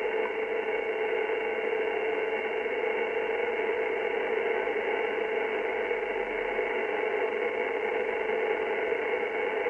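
Static from a Yaesu transceiver's speaker on the 27 MHz CB band in lower sideband: a steady rushing hiss with a few faint steady tones in it, and no voice coming through, so the other station is not being heard.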